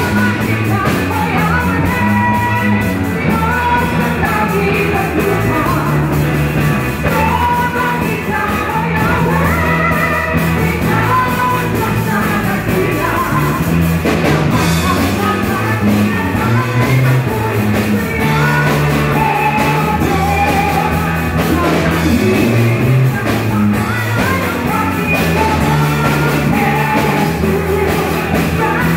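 Live band playing a song: amplified electric guitars and a woman singing into a microphone, loud and continuous.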